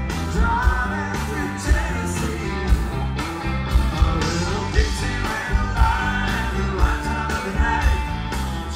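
Live country-rock band playing through a big outdoor PA, heard from within the crowd: a singer over band backing, with a strong beat about once a second.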